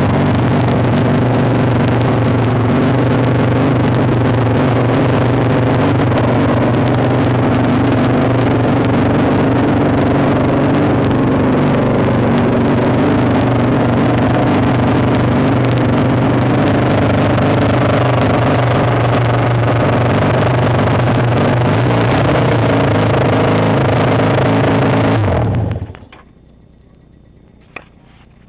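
1981 Honda CM400T's air-cooled parallel-twin engine, fitted with new air filters, idling steadily, then shutting off about 26 seconds in. A single click follows shortly after.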